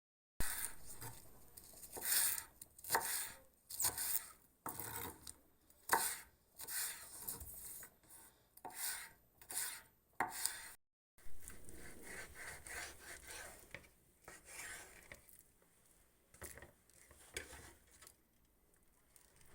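Knife chopping food on a cutting board: irregular sharp strokes, roughly one or two a second, with some scraping between them. The strokes are stronger in the first half and thin out later.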